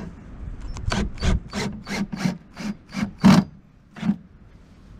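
Small ratchet wrench tightening the nut of a metal U-bolt mounting clamp, in about ten short rasping ratchet strokes at roughly three a second that stop about a second before the end.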